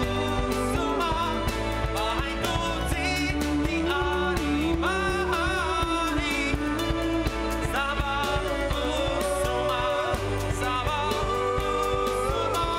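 Band performing live: a male voice singing over keyboard, bowed cello and drum kit.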